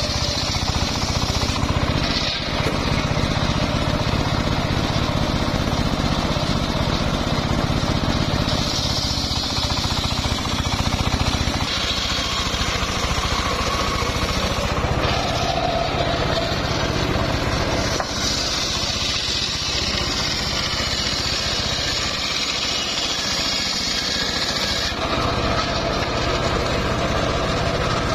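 Engine-driven homemade table circular saw ripping a mahogany log lengthwise. The engine runs steadily under load, and a high cutting whine from the blade rises and drops away several times as the wood is fed through.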